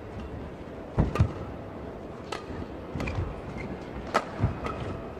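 Badminton rackets striking a shuttlecock in a fast men's doubles rally: about six sharp hits roughly a second apart, the loudest pair close together about a second in. Players' shoes thud and squeak on the court.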